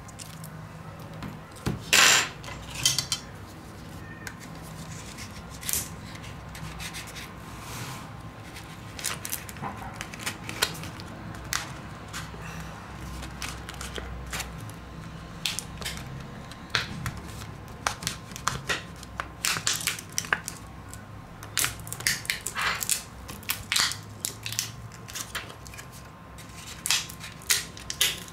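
Small repair tools clicking, tapping and scraping against a Huawei S10's casing and internal parts during disassembly, in short irregular bursts with the loudest click about two seconds in. A faint steady hum lies under them.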